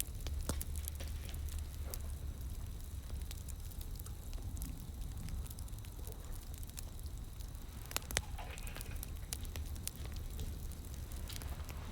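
Wood fire crackling, with scattered sharp pops over a low steady rumble and a couple of louder pops about eight seconds in.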